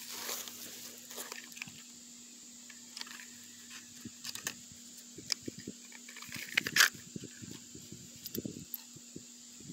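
Hands handling and opening a small cardboard spark plug box: scattered crinkles, taps and rustles, the loudest a short scraping rustle about seven seconds in.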